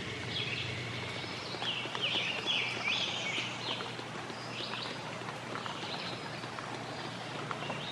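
Wild songbirds chirping: a quick run of high notes about two seconds in and a few scattered calls later, over faint steady outdoor background noise.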